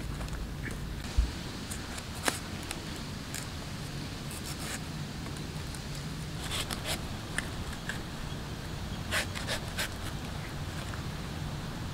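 Curved knife blade shaving the tough black fibrous skin off a palmyra fruit: irregular short scraping cuts, several in quick clusters.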